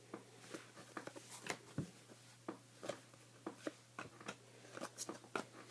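Trading cards being flipped through and slid against each other by hand: faint, irregular clicks and soft scrapes, with a steady low hum underneath.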